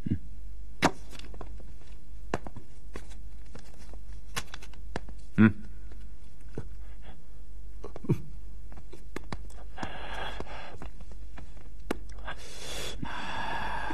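Scattered light knocks and clicks over a steady low hum, the loudest knock about five and a half seconds in, with two spells of breathy hiss near the end.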